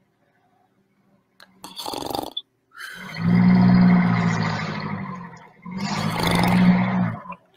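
A man doing mock snoring: a short snore about two seconds in, then two long, drawn-out snores.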